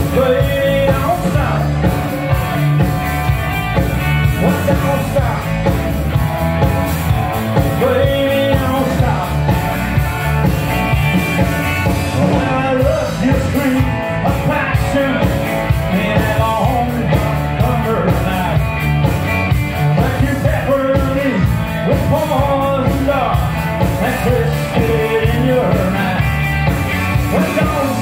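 Rock band playing live: electric guitars over a steady drum beat.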